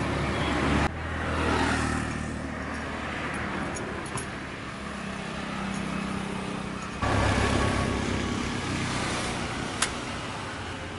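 Highway traffic: vehicle engines running and passing by, one sweeping past about a second in, with the sound changing abruptly twice. A single sharp knock near the end.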